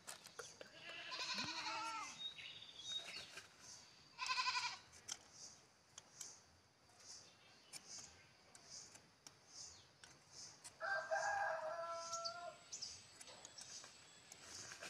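Chickens calling in the background, with a rooster crowing: a long, level crow about eleven seconds in, and shorter calls about a second and four seconds in.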